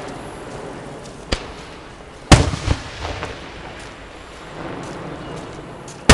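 Fireworks going off. A sharp bang comes about a second in, then a loud shell burst a little after two seconds with rumbling echoes, and another loud bang near the end.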